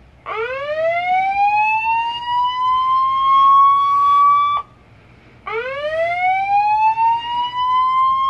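Federal Signal SelecTone 300GC electronic siren sounding its whoop tone through its speaker, on the low-volume setting: a tone sweeps up from low to high over about four seconds and cuts off sharply. After a short gap a second whoop starts from the bottom and climbs.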